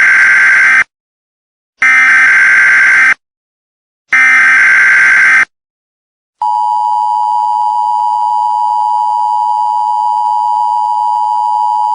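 Emergency Alert System broadcast signal: three short bursts of screechy digital data tones with about a second of silence between them (the SAME header), then a long, steady attention tone.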